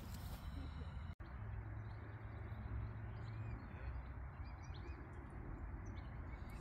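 Outdoor ambience: a steady low rumble and hiss with faint, scattered small-bird chirps. The sound cuts out for an instant about a second in.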